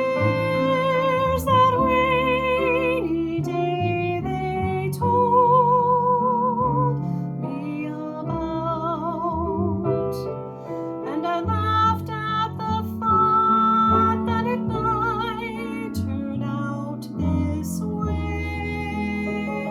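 Female soprano singing with vibrato on long held notes, accompanied by piano.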